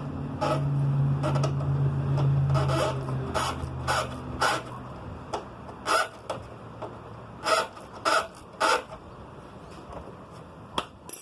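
Irregular metal clinks and knocks, about a dozen, from tools and parts being handled while working on a motorcycle. They sit over a low steady hum that fades out about halfway through.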